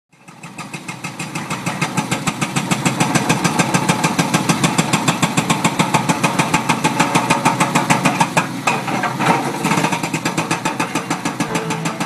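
Excavator-mounted hydraulic breaker hammering rock in rapid, even blows, several a second, over the machine's engine. It fades in over the first two seconds.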